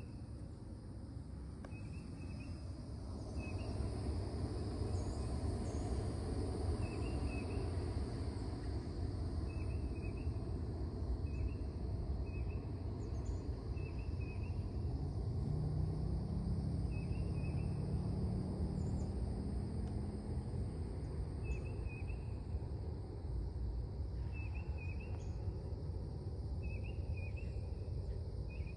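Outdoor ambience: a steady low rumble with short, high chirps repeating every second or two, typical of insects or small birds. A faint low hum comes in about halfway through and fades a few seconds later.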